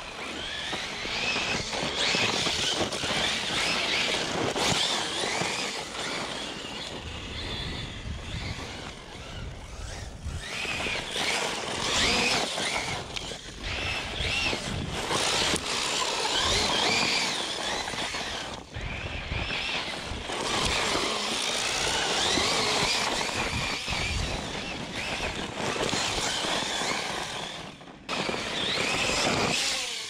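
ARRMA Talion XL RC truck's 2000 kV brushless motor whining, its pitch rising and falling again and again as the truck accelerates and slides on loose dirt, over a low rumble of tyres on dirt.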